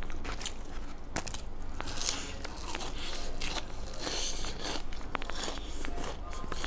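Close-up crunching as a person bites into and chews a crispy golden rice-textured food, a run of sharp crackles and crunches picked up by a clip-on microphone right below the mouth.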